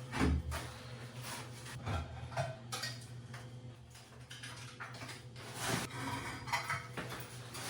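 Scattered clinks, knocks and scrapes of loose ceramic wall tiles being worked off and handled, over a faint steady hum.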